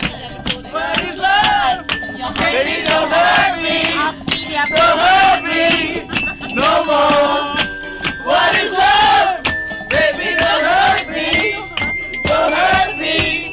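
A group of people singing and chanting loudly together, with hand claps.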